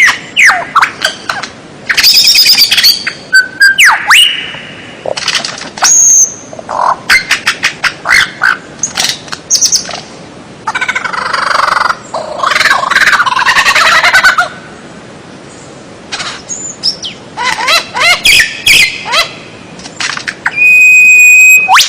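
Loud medley of songbird calls and song: rapid whistles sliding up and down, fast rattling trills and sharp chirps in short, varied phrases separated by brief pauses, with one held steady whistle near the end.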